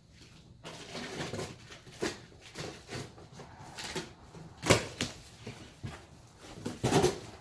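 A shipping box being opened and unpacked by hand: packing rustling and scraping with scattered knocks, one sharp knock a little past the middle and a cluster of louder knocks near the end.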